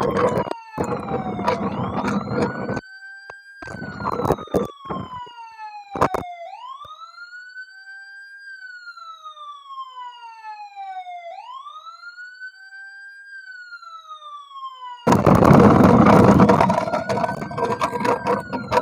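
Electronic siren wailing: each cycle swoops up quickly, then slides slowly down in pitch, repeating about every five seconds. Clattering and clicking comes in the first few seconds, and a loud rush of noise starts about fifteen seconds in.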